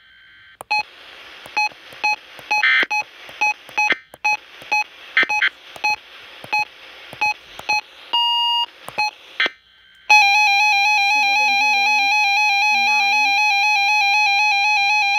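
RadioShack 12-521 weather alert radio: short key beeps over radio static while its buttons are pressed, with one higher beep near the middle. About ten seconds in, its loud, slightly warbling alert alarm tone starts and keeps sounding as an alert is triggered.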